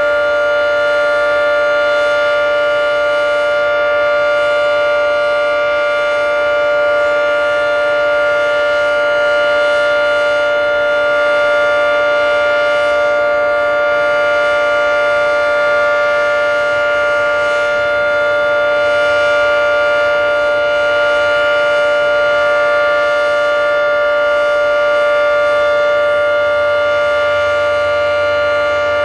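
Federal Signal 3T22 three-tone mechanical outdoor warning siren sounding a steady alert: a loud, sustained multi-tone chord that holds its pitch without rising or falling, swelling slightly in loudness now and then.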